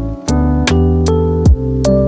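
Background music: a pop-style electronic track with sustained keyboard chords over a bass line and a steady drum beat.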